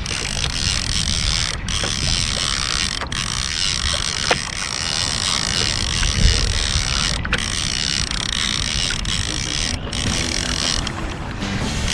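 Fishing reel running with a steady ratcheting buzz, broken by a few brief pauses, under a low rumble of wind on the microphone.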